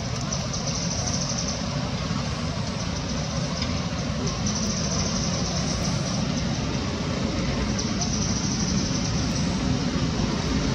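Steady low rumble of outdoor background noise, like road traffic or engines, with a high hiss that swells up three times, near the start, in the middle and at the end.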